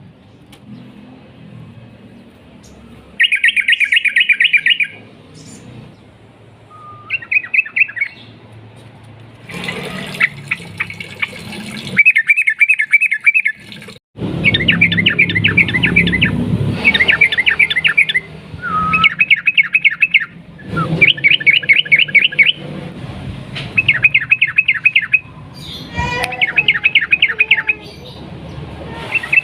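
Sooty-headed bulbul (trucukan) singing in long rapid-fire phrases, the 'ropel panjang' style prized by bird keepers. About ten bursts of quickly repeated notes come with short pauses between them.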